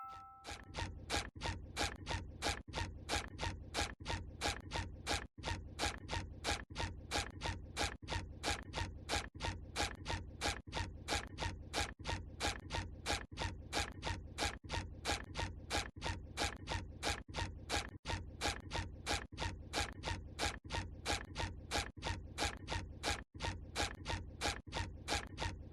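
The SpongeBob SquarePants cartoon walking sound effect: an even, unbroken run of short footstep sounds, about three a second.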